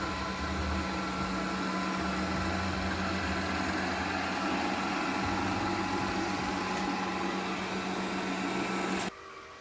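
Robot vacuum cleaner running in auto-cleaning mode: a steady motor and fan hum with a low, uneven rumble underneath. It cuts off suddenly about nine seconds in.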